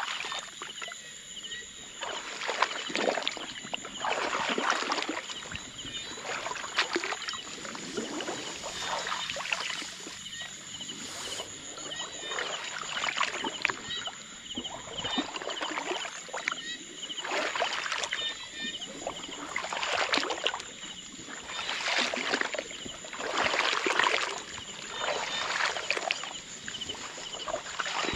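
A person wading slowly through shallow water among reeds and grass: a slosh and swish of water with each stride, about every two seconds.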